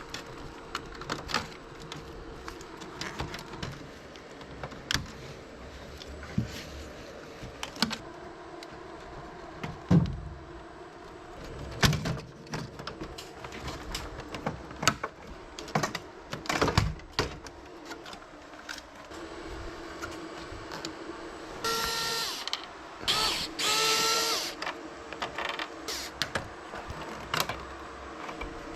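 Irregular clicks, taps and knocks of plastic parts and tools being handled while an air conditioner is taken apart. Two short whines come near the end.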